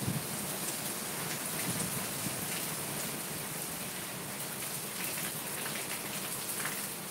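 Heavy cyclone rain falling steadily onto waterlogged ground and trees, an even, unbroken hiss.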